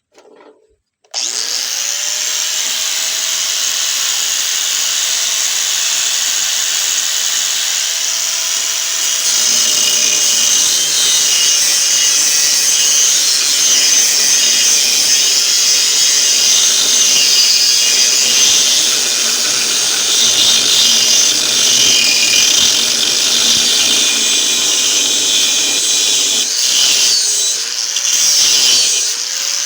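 Angle grinder with a worn cutting disc switched on about a second in, its whine rising to full speed, then cutting into the steel shell of a refrigerator compressor from about nine seconds, the noise growing heavier under load. Near the end the disc is briefly eased off and the motor speeds up again before going back into the cut.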